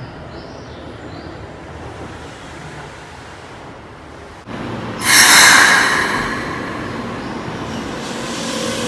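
Keikyu 600-series 'Blue Sky Train' electric train approaching with a low rumble, then passing close by with a sudden loud rush about five seconds in. Near the end the slightly rising whine of its Toyo GTO VVVF inverter can be heard.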